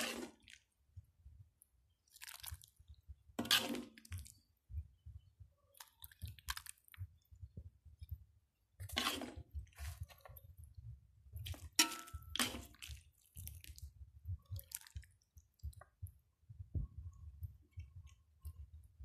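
A ladle scooping curry out of a metal wok into a bowl: short scrapes and clinks against the wok and wet splashes of the soup being poured, coming one at a time with pauses between them.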